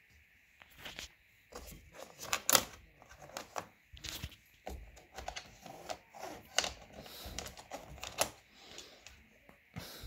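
Irregular clicks and knocks of hard plastic and metal as hands work a stuck seat-belt buckle cable loose from a car's rear seat frame. The loudest knock comes about two and a half seconds in.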